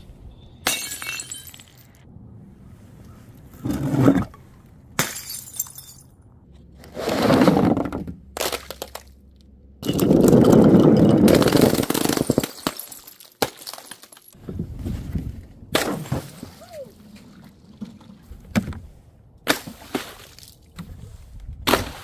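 Glass bottles dropped onto paving tiles and shattering, in a series of separate crashes one after another, with one longer, louder crash near the middle.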